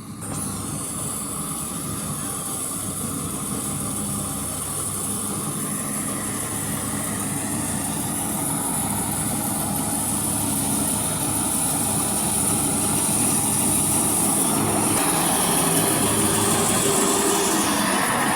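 Maxxi J rice combine harvester running steadily, its engine hum joined by a high steady whine, gradually growing louder.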